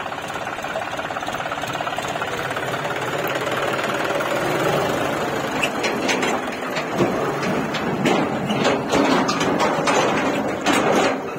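John Deere tractor's diesel engine running as it pulls a tipping trailer over rough ground, with repeated knocks and rattles joining in from about halfway through.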